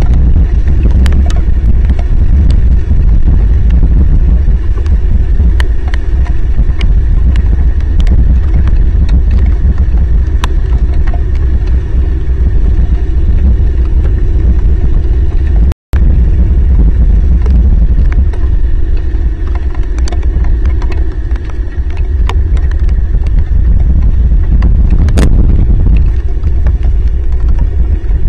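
Heavy rain on an outdoor camera microphone: a loud, constant low rumble with frequent sharp ticks of drops striking close to the mic. The sound cuts out for an instant about halfway through.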